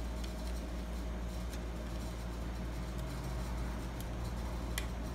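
Steady low background hum, with a few faint clicks and light taps as the lock's base plate and flex cable are handled, a sharper click near the end.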